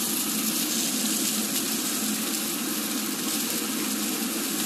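Thick top sirloin steak sizzling steadily in a hot stainless-steel pan during a high-heat sear.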